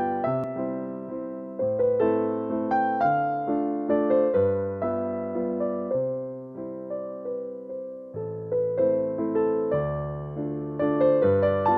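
Background music: a gentle piano tune, each note struck and fading away, over low notes that change about every two seconds.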